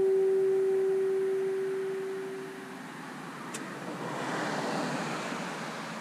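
Three Nathan train horns sounding a steady chord together, its echo fading out about two and a half seconds in. A passing vehicle's rush then swells and fades, with a sharp click just before it.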